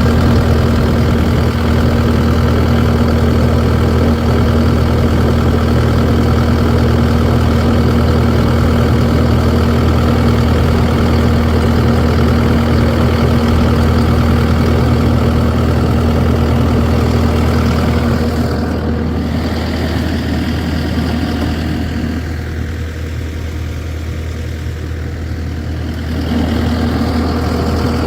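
A heavy engine idling steadily at an even pitch, dropping somewhat in loudness for several seconds about two-thirds of the way in before coming back up.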